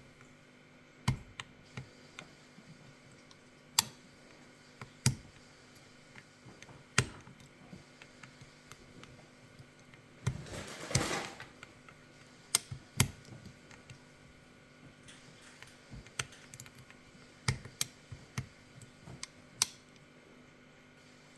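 Irregular sharp clicks and taps of lock picks working the pin stacks of an Izis pump lock, with a second-long scraping noise about ten seconds in.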